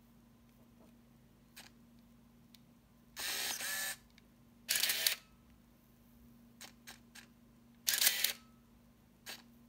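Minolta 7000 AF 35mm SLR working: three short bursts of camera mechanism noise, the shutter firing and the built-in motor winding the film on to the next frame, with faint button clicks in between.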